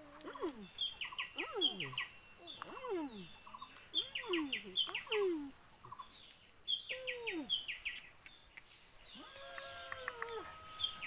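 Forest ambience: insects holding steady high-pitched drones, over bursts of short chirps and a run of falling calls about once a second. A longer wavering call comes near the end.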